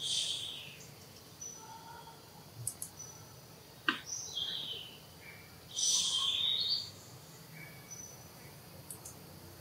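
Birds calling in the background: short high chirps and whistles, with two louder harsh calls, one at the start and one about six seconds in. A single sharp click about four seconds in.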